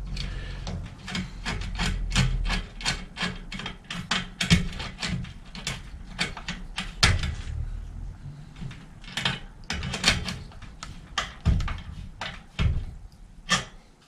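A 10 mm socket wrench turning the chain tensioner screws at a bicycle's rear axle to take up chain slack: a run of sharp metallic clicks, fast for the first few seconds, then in scattered groups.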